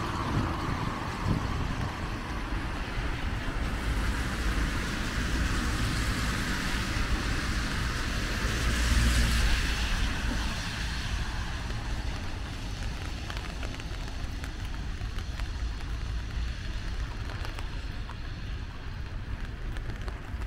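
Steady hiss of rain and traffic on wet city streets, with a vehicle swelling past about nine seconds in, then fading to a quieter background.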